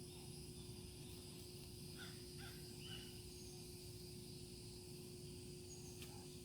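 Faint outdoor background with a steady hum; about two seconds in, three short bird calls in quick succession.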